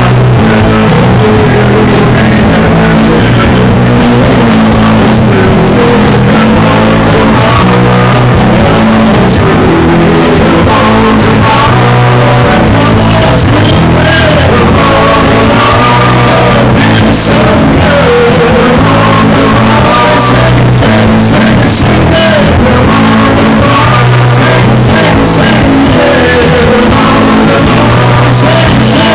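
Live rock band playing loud: electric guitars, bass and drum kit, with a man singing into a microphone.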